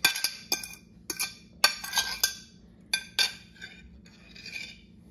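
A utensil clinking and scraping against a plate as shredded chicken is pushed off it into a slow cooker: a run of about a dozen sharp clinks and short scrapes, growing softer and stopping near the end.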